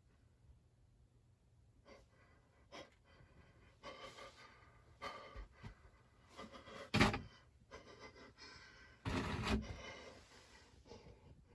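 A person breathing hard, with irregular heavy breaths and gasps, the loudest about seven and nine and a half seconds in.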